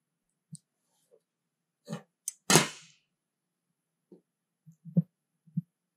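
A steel ruler and a steel square knocking and clanking on a sheet-steel partition panel as they are set down and picked up: scattered light taps, and one loud metallic clank about two and a half seconds in that rings on briefly.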